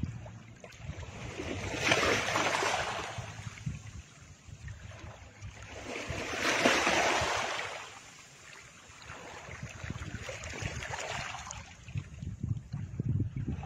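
Three slow swells of rushing noise, a few seconds apart, over a steady low rumble.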